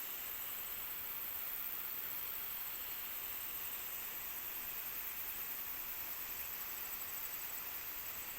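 Steady, even rush of water falling at a small waterfall, a constant hiss with no breaks.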